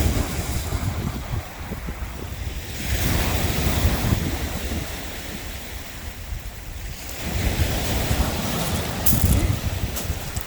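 Wind buffeting the microphone over the wash of waves, swelling louder twice, with a few faint clicks near the end.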